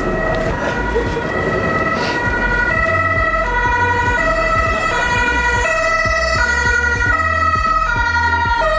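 Upbeat electronic background music: a melody of held notes that changes pitch about every half second over a steady high tone, a stepping bass line and a beat.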